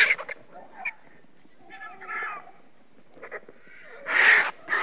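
Vultures calling: short, harsh rasping calls, the loudest at the start and about four seconds in, with a shorter call about two seconds in and a few clicks between.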